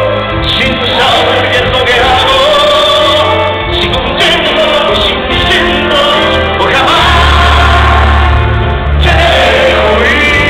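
Live bolero performance heard from the audience in a large hall: a singer holding long notes with vibrato over a band with sustained bass.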